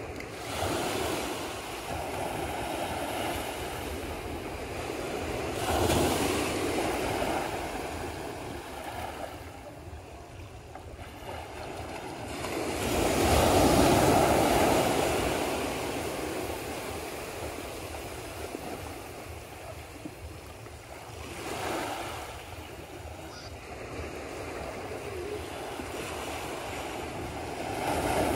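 Gentle surf breaking on the shore, in slow swells a few seconds apart, the loudest wave about halfway through.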